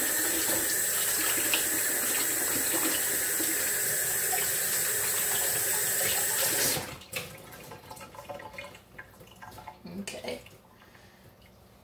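Kitchen sink tap running steadily while hands are washed, shut off abruptly about seven seconds in. After that come faint rustles and small knocks as hands are dried on a cloth towel.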